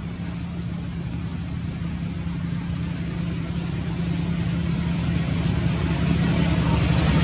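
A motor vehicle's engine running as a steady low hum that grows steadily louder, as if the vehicle is drawing closer.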